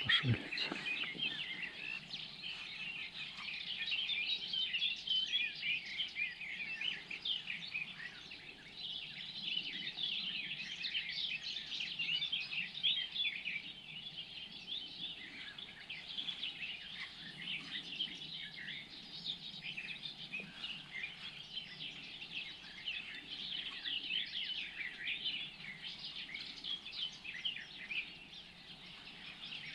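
Many small birds chirping and calling together, a dense chorus of short overlapping chirps with no single call standing out.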